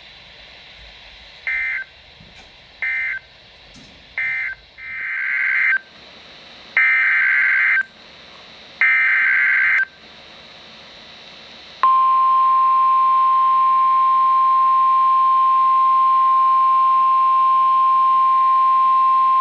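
NOAA Weather Radio SAME digital data bursts: three short end-of-message bursts, then three longer header bursts that encode the next alert. About twelve seconds in, the steady, loud 1050 Hz weather radio alert tone starts, which signals that a warning is about to be broadcast.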